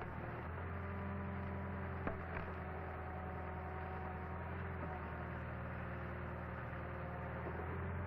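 Steady low hum with a couple of faint clicks about two seconds in.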